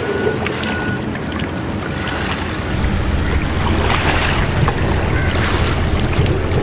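Wind buffeting the microphone with a dense low rumble that grows louder about three seconds in.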